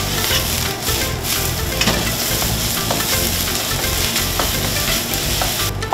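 Fried rice sizzling steadily in a hot wok as it is stirred and turned with a spatula, with light scrapes and taps of the spatula against the pan.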